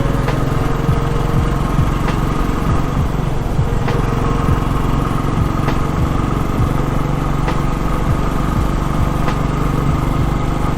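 Royal Enfield Classic 350's single-cylinder engine running steadily while the motorcycle is ridden.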